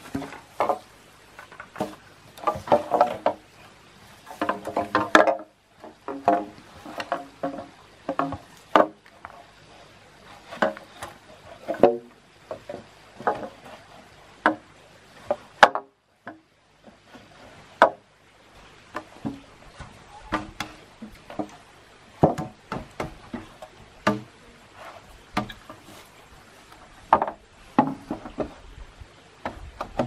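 Hollow green bamboo poles knocking and clattering against one another as they are handled and laid out on the ground: many irregular knocks, each with a short hollow ring.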